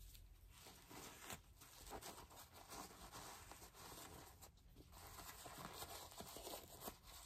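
Near silence with faint rustling and crinkling of a disposable diaper being handled and fastened on a doll.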